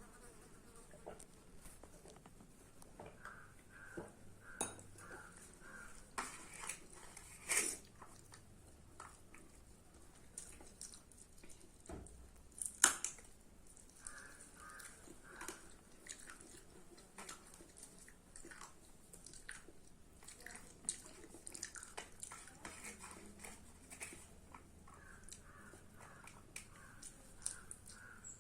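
A person chewing and eating rice and chicken curry close to the microphone, with small mouth sounds and occasional clinks of a plate. There is one louder sharp knock about thirteen seconds in and a smaller one about seven seconds in.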